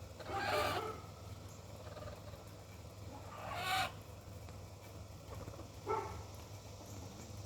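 Chickens calling: three separate squawk-like calls, two of about half a second and a short one near the end.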